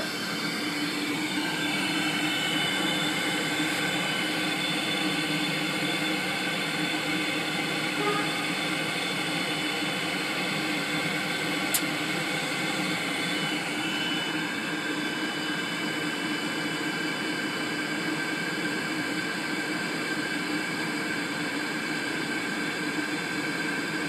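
Gas-fired steam humidifier's combustion blower and burner running steadily: a continuous rushing whir with several steady tones in it, the pitch shifting slightly in the first couple of seconds and again about halfway through. The burner is firing again after relighting.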